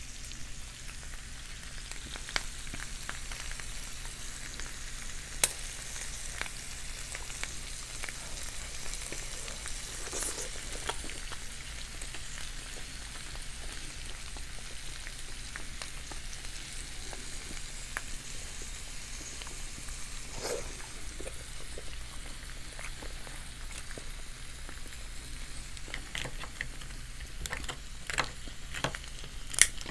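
Seafood boil sizzling on an electric hot plate: a steady frying hiss, with scattered sharp clicks and taps as the food is handled, several of them near the end.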